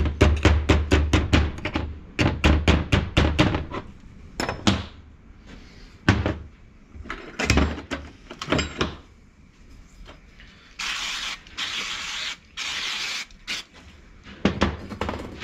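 Rapid metal tapping on a gearbox shaft, about six to eight taps a second, as a circlip is driven and seated, followed by a few separate knocks. Near the end come several short bursts of hiss, then more taps.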